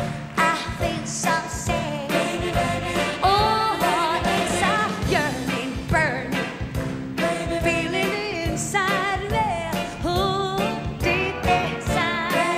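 A woman singing with vibrato over big band accompaniment, with horns and drums keeping a steady beat.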